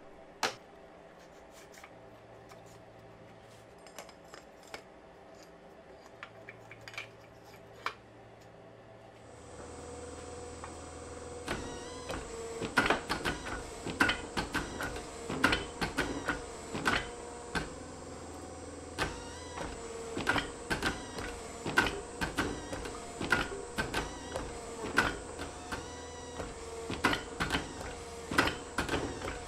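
A forging press's motor starts up about nine seconds in and keeps running with a steady hum. Soon after comes a run of sharp, irregular cracks and ticks as the press squeezes a glowing, can-welded steel billet and scale breaks off its surface. Before the motor starts there are only a few scattered clicks.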